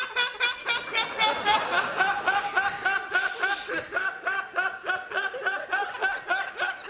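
A young man laughing hard in a long, unbroken run of rapid pitched 'ha' pulses, about five a second. He sounds like he's just breathing out, with hardly a pause to take in air.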